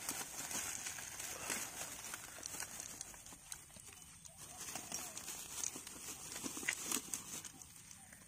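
Footsteps and rustling through dry grass and undergrowth: irregular soft steps and brushing of stems and leaves as someone walks. A faint steady high-pitched whine runs underneath.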